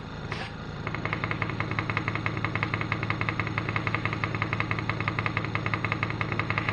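Paint sprayer's motor running with a fast, even pulsing beat over a steady low hum. The pulsing comes in about a second in.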